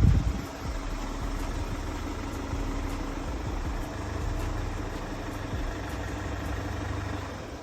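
Range Rover Velar engine idling steadily just after a remote start by the alarm's autostart function. A brief low thump comes right at the start.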